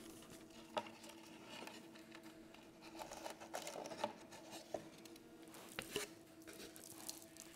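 Faint handling noises of hands gluing rickrack trim with a hot glue gun: soft rustling and scattered light taps, over a steady low hum.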